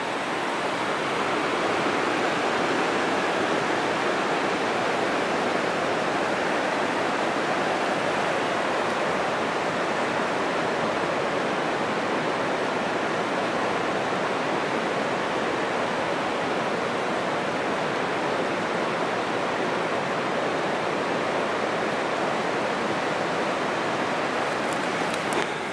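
River rushing over rocks in a gorge below, a steady rush of flowing water.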